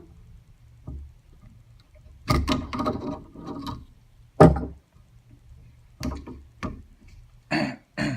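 Irregular knocks and clunks of metal parts and tools being handled on a workbench, about eight separate hits with the loudest about halfway through, over a faint steady low hum.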